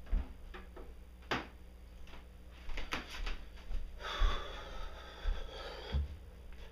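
An acoustic guitar set down against a wooden stand with a few knocks, then footsteps and a close rustle of clothing passing the microphone, over a steady low electrical hum.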